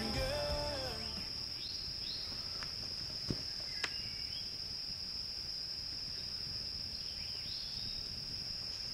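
Steady high-pitched insect chorus with a few short bird chirps. Two light, sharp clicks about three seconds in as the metal pot is hung by its bail over the fire, and a music tail fading out in the first second.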